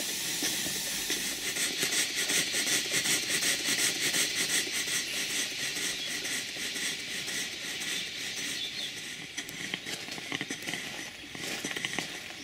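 Large model horizontal steam engine running on live steam: a steady hiss of steam with a rapid, even beat of exhaust puffs, a little quieter in the second half.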